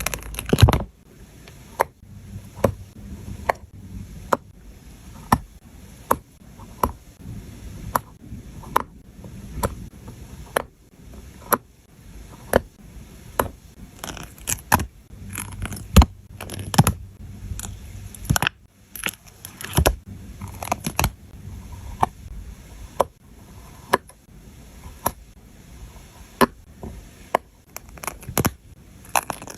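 Close-up sticker crafting: a string of sharp, irregular taps and clicks, about one or two a second, over light scraping and rubbing as paper stickers and craft pieces are handled and pressed down on a work surface.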